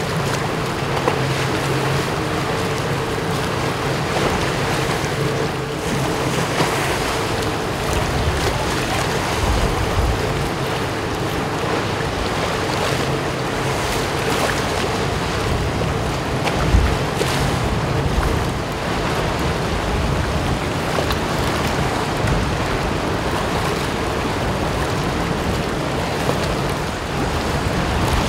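Large ro-ro car ferry passing close by, its engines giving a steady low hum with a higher steady drone above it, over the wash of choppy sea. Wind buffets the microphone now and then.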